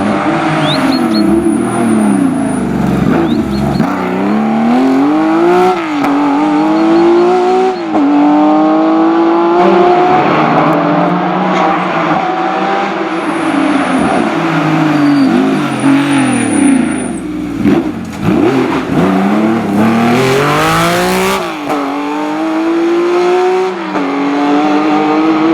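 Historic rally cars passing at full throttle, engines revving up through the gears with the pitch dropping at each upshift several times, and falling away between climbs.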